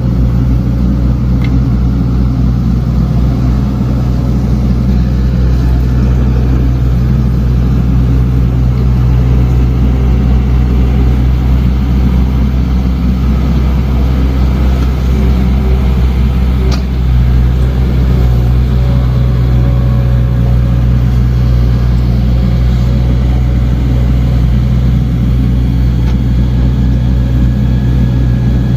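Diesel engine of heavy earthmoving machinery running steadily at a constant speed, with a couple of faint clicks.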